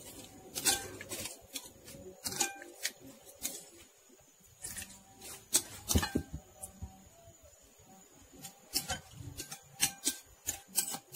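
A utensil clinking and scraping irregularly against a bowl as shallot-garlic paste is stirred with water, over faint background music.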